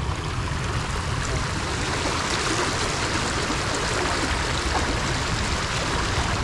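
Shallow river water rushing steadily over stones, with legs wading and splashing through the current.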